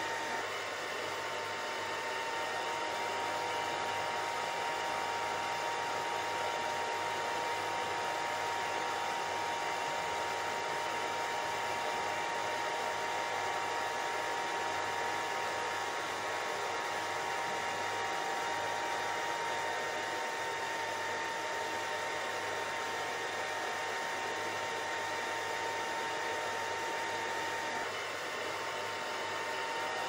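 Steady white noise: an even, unbroken hiss with a faint high whine running through it, dipping slightly near the end.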